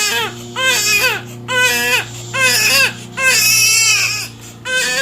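Newborn baby crying hard in a series of wails, about one a second, each bending up and down in pitch, in distress at having his diaper changed.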